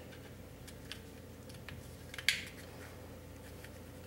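A few faint clicks of small pistol parts being handled, with one sharper click a little over two seconds in, over a faint steady hum.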